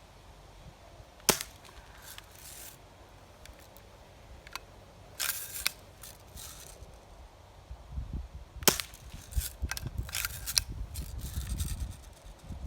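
BB gun firing: two sharp shots several seconds apart, the first the loudest, with smaller clicks and rattles between and after them and a low rumble near the end.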